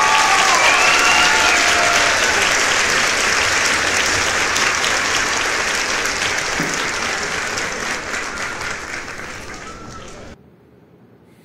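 A crowd applauding, with a few voices cheering over the claps in the first couple of seconds. The applause slowly fades and then cuts off abruptly about ten seconds in.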